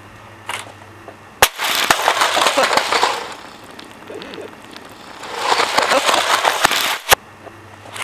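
A portable CD player boombox smashing onto a concrete driveway: a sharp crack, then plastic pieces and batteries clattering and skittering across the concrete for about two seconds. A second stretch of the same clatter follows, ending in another sharp crack about seven seconds in.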